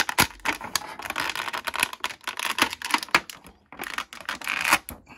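Thin clear plastic packaging tray crackling and clicking in a rapid, irregular run of sharp clicks as an action figure is worked free of it.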